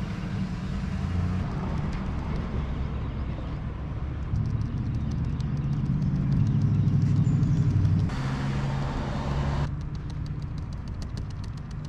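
A motor vehicle's engine running, a steady low hum that grows louder from about four seconds in and drops back about eight seconds in. A short hiss lasting about a second and a half follows, then light, rapid ticking near the end.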